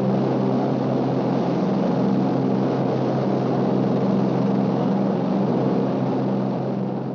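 Douglas DC-3 cabin interior in level flight: the twin radial engines and propellers drone steadily with a low, even engine hum over rushing noise, beginning to fade out near the end.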